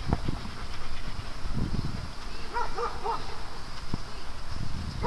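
A dog whining in a few short, high, arched notes about two and a half seconds in, over low uneven noise.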